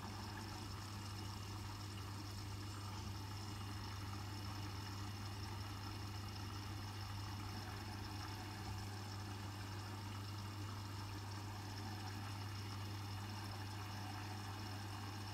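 Hotpoint WMFUG 942 washing machine taking in water for its first rinse: a steady flow of water into the drum over a constant low hum.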